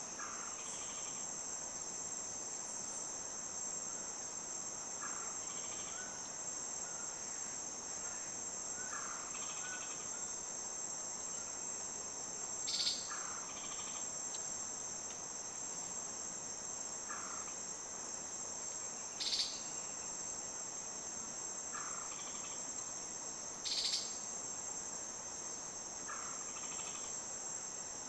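Steady high-pitched drone of rainforest insects such as crickets or cicadas. Faint short calls come through about every four seconds, and three brief sharp clicks fall in the second half.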